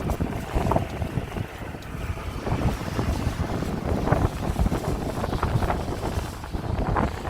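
Wind buffeting the microphone: an uneven low rumble with irregular gusts.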